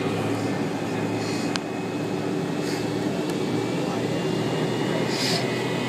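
Airliner cabin noise while the jet taxis: a steady hum and rush from the idling jet engines and cabin air, with a faint high whine underneath. A single click comes about a second and a half in.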